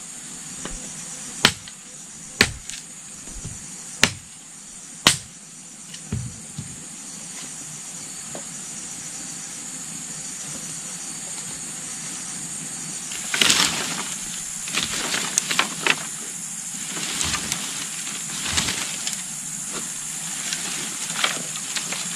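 Four sharp knocks, spaced about a second apart in the first five seconds. About halfway through comes a stretch of rustling and scraping with irregular knocks. A steady high-pitched hiss or buzz runs under it all.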